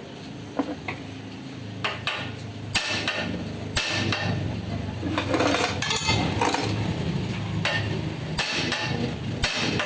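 A hammer striking metal on a car's front suspension: several separate sharp blows with tool clatter and scraping between them, as the lower arm and ball joint are worked loose.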